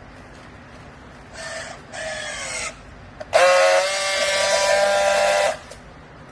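Clothes-scrap baler's hydraulic system whining under load: two short whines that fall in pitch, then a louder, steady whine lasting about two seconds that cuts off suddenly.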